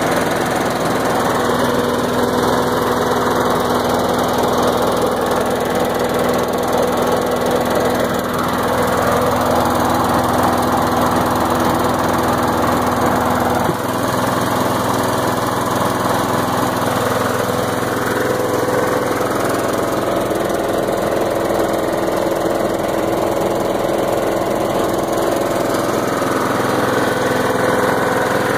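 Briggs & Stratton engine of a Troy-Bilt CSV 060 chipper-shredder vacuum running steadily, having started after a repair. About halfway through, as the nozzle-to-vacuum lever is moved, the note shifts slightly.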